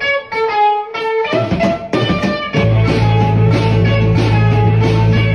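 Background music: a melody of separate picked notes, then a fuller band with a steady bass line comes in about halfway through.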